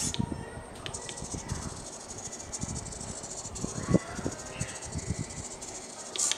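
Small hobby servo motors in a pan-tilt bracket whirring and buzzing in short stretches as a servo tester drives them, with a pitch glide as a servo moves about four seconds in. Low knocks from the bracket being handled run underneath.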